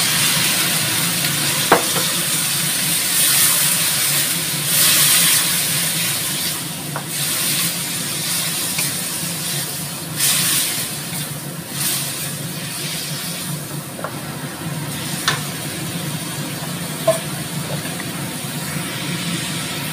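Cabbage and carrots sizzling in a hot steel wok just after a splash of water, stirred and tossed with a wooden spatula. The sizzle swells in waves as the vegetables are turned, with a few sharp knocks of the spatula against the pan, over a steady low hum.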